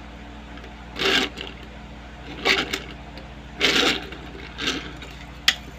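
Small die-cast metal toy cars pushed and rolled about on a tabletop: several short rolling scrapes about a second apart, then a sharp click near the end. A steady low hum runs underneath.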